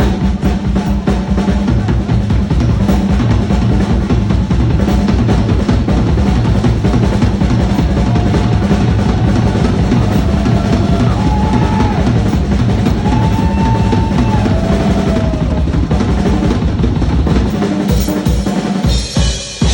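Rock drum kit solo: fast, continuous bass drum strokes under snare and tom rolls, thinning near the end into a cymbal crash.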